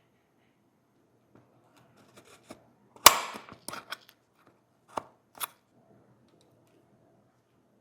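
A few sharp clicks and knocks of small hard objects being handled. The loudest is a snap about three seconds in, with a brief rattle after it, and two lighter clicks follow about a second and a half later.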